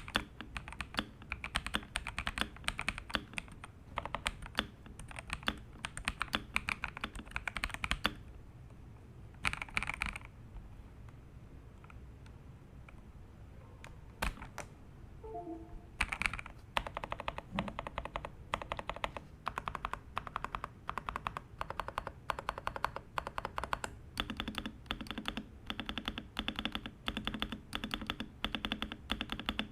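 Xinmeng X87 mechanical keyboard with WS Morandi switches being typed on in fast runs of keystrokes. The typing stops for several seconds about a third of the way in, with only a few stray key presses, then resumes.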